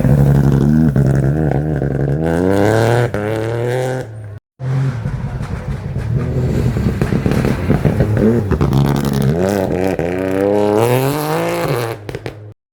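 Rally car engines accelerating hard, the engine note climbing steeply in pitch and dropping back as the gears change. The sound cuts out abruptly a little after four seconds in, then another car is heard accelerating the same way.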